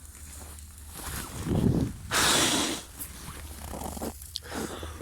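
A person blowing hard on a campfire that won't catch, to revive the embers: a gust with a low rumble on the microphone, then a long hissing blow.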